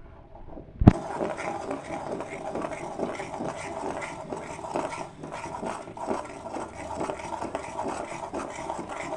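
A sharp click about a second in, then milk cream bubbling and crackling with many small irregular pops in a hot kadai as it cooks down into ghee.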